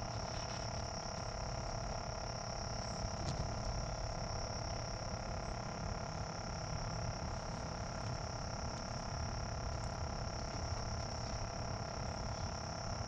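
A steady evening chorus of insects, a constant high buzz with fainter lower tones, over a low, even rumble.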